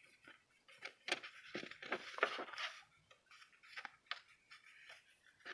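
Faint rustling of a sheet of letter paper being handled and unfolded, with a few soft ticks.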